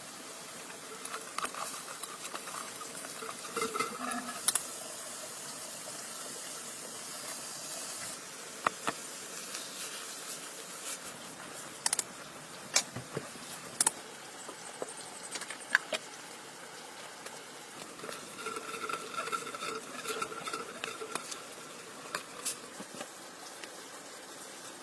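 Cooking in a pan: a steady sizzle with a utensil stirring and scattered sharp clicks and knocks against the pan.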